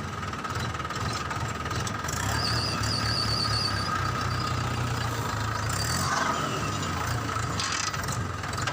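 Small battery-powered electric motor of a homemade toy tractor running steadily: a low hum with a thin, steady whine above it.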